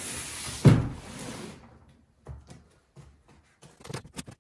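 A heavy cardboard box holding a drill press is tipped over and set down on a wooden workbench: cardboard scraping, then one heavy thud about 0.7 s in. Light clicks and scrapes follow from about two seconds in as a box cutter works at the packaging tape.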